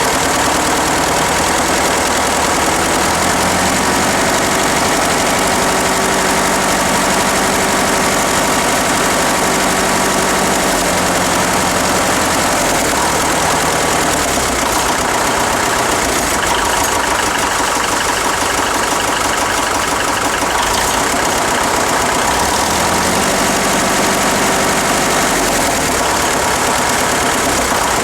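Farmall gas-start diesel tractor's four-cylinder engine running at a steady idle, with its sheet metal and emblems vibrating along with it. The engine note shifts somewhat in the middle, then settles back.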